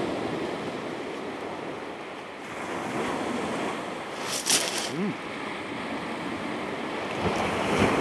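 Waves breaking and washing on a shingle beach, a steady rush, with a short sharper burst about four and a half seconds in.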